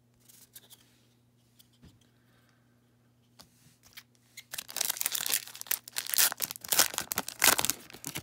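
Trading card pack wrapper being torn open, crinkling and ripping loudly for about the last four seconds, after a few faint taps.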